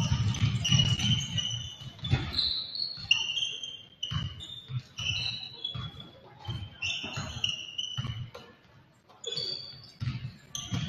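Sneakers squeaking again and again on a gym floor, many short high squeaks at irregular times, with a basketball bouncing and voices in the hall.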